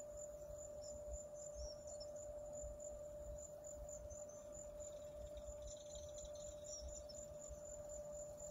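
Insects chirping in a steady rhythm, a high pulse about three times a second, over a steady hum-like tone and light low rumble.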